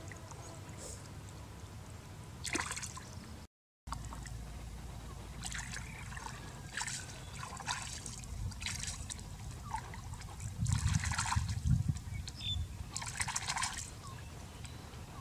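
Shallow pond water splashing and trickling in short bursts, about seven of them, as hands scoop snails up out of it, with the sound cutting out briefly a few seconds in.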